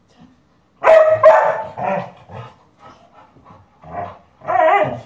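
Dog barking: a loud run of barks about a second in, a few shorter, fainter ones, then another loud bark near the end.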